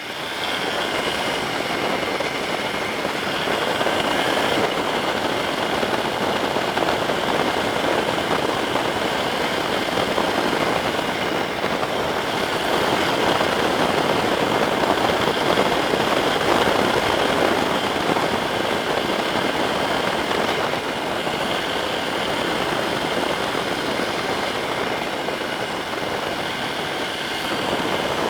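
Yamaha Serow 250 being ridden in the rain: a steady rush of wind and road noise with the single-cylinder engine running underneath.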